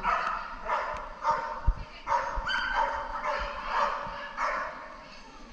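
A dog barking over and over, about two barks a second, stopping about a second before the end.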